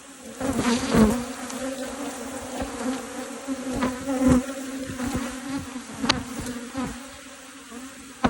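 A cloud of disturbed honeybees flying around an opened hive, giving a steady high hum with individual bees buzzing close past; the colony is cranky and flighty. A few short knocks and clicks come through, the loudest about a second in and near six seconds in.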